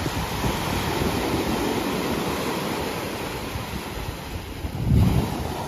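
Small ocean waves breaking and washing up a sandy beach, with wind on the microphone; a louder low rumble comes about five seconds in.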